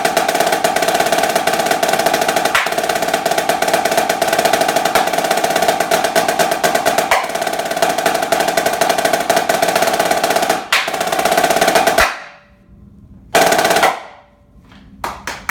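Snare drum played in fast, dense rolls and strokes, its head ringing underneath, building to a roll that cuts off about twelve seconds in, then one short final roll about a second later that stops dead. Audience clapping starts near the end.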